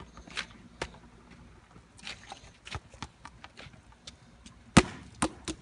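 Light footsteps tapping on wet pavement, then a sharp smack near the end as a rubber ball hits the ground, followed by a couple of lighter bounces.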